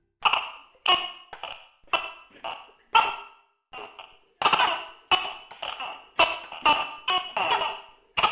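Tokay gecko calling: a run of short, clipped croaks, about two a second, with a fainter one after a brief gap near four seconds in.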